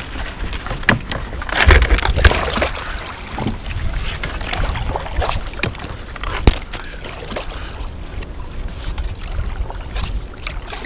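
Kayak paddling: the paddle splashes irregularly in the water, loudest about two seconds in, with a sharp knock about six and a half seconds in.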